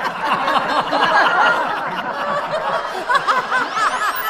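A group of people laughing heartily together, several voices overlapping in choppy bursts of laughter.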